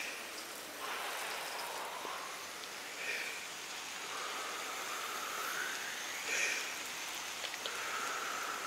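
A steady outdoor hiss, like rain or running water, with a few faint gliding whistle-like calls over it.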